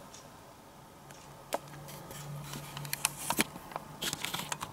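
Scattered sharp clicks and light rustling close to the microphone, loudest about one and a half seconds in and again around three seconds in, over a faint steady low hum.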